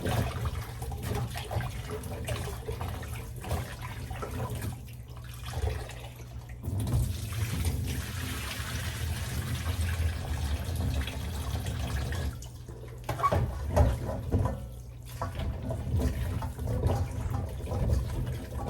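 Water running from a kitchen tap into a sink, with splashing and small knocks as cut cassava pieces are rinsed. The flow is heavier in the middle of the stretch.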